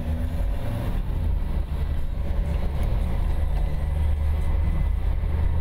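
A car driving along a road: a steady low rumble of engine and tyres.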